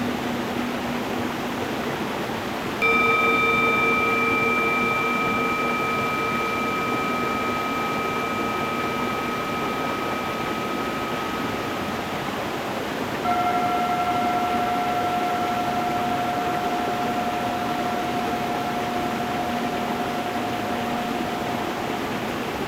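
Singing bowls struck twice over a steadily running stream: a lower bowl about three seconds in and a higher one about thirteen seconds in, each ringing on with several overtones and fading slowly.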